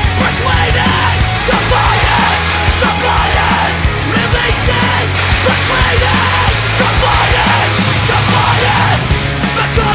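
Loud heavy rock music with shouted vocals over a driving bass line.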